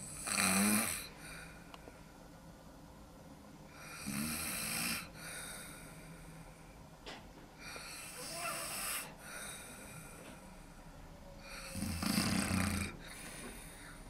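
A man snoring in his sleep through an open mouth: four snoring breaths about four seconds apart, the first and last loudest.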